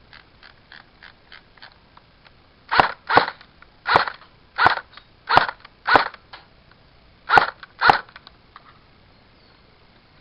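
Airsoft electric rifle firing eight single shots on semi-automatic, sharp snapping cracks often in quick pairs, after a couple of seconds of faint, rapid ticking.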